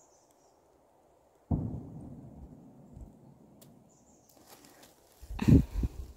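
Rustling and scraping in leaf litter and undergrowth, with a sudden scuff about a second and a half in and a louder, short rustle near the end.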